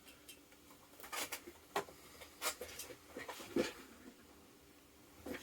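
Handling noises on a table: a string of irregular light knocks and clicks as the laptop is set aside and things are moved about, with one firmer knock a little past the middle.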